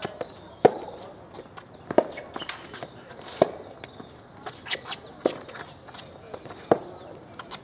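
Soft tennis rally: the rubber ball popping sharply off the rackets and the court about every second and a half, with the players' shoes scuffing and squeaking on the hard court between strokes.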